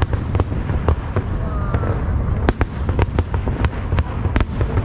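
A fireworks display going off in quick succession: a dense, steady low booming of shell bursts with many sharp cracks and pops on top, several a second.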